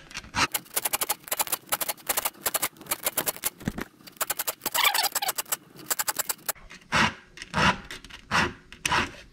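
Round file rasping across the cutter teeth of a saw chain: a fast run of short, quick strokes for the first six seconds or so, then slower, separate strokes roughly every two-thirds of a second.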